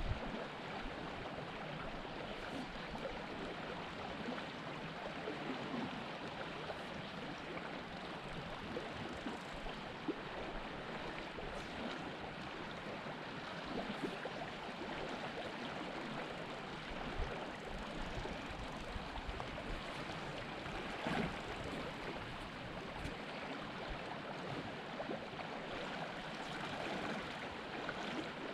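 Small mountain river flowing over a shallow rocky bed: a steady, even rush of running water.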